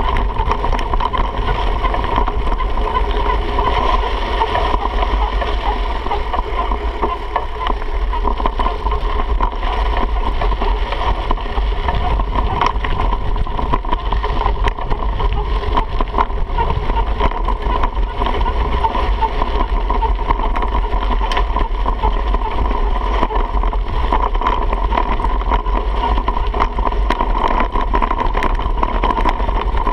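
Wind buffeting a handlebar-mounted camera on a mountain bike riding downhill on a dirt trail, over a steady rumble of tyres on dirt. Many short clicks and rattles come from the bike going over bumps.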